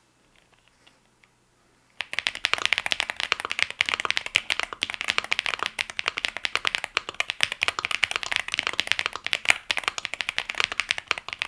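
Fast, continuous typing on a gasket-mounted aluminium tenkeyless mechanical keyboard (Feker Galaxy80) with Akko V3 Cream Blue Pro tactile switches, many keystrokes a second. It starts suddenly about two seconds in, after a near-silent start with a few faint ticks.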